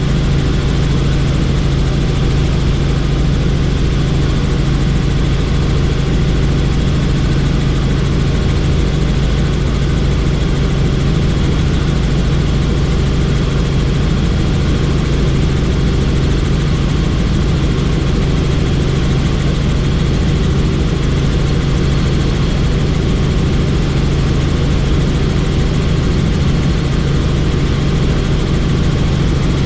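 Helicopter running steadily, heard from inside a doors-off cabin: a constant loud rotor and engine noise with a strong low hum, unchanging throughout.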